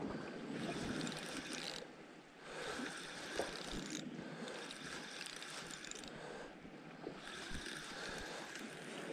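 Wind on the microphone and sea washing against the rocks. Under it, a spinning reel is wound in stretches as a hooked fish is played on a bent rod.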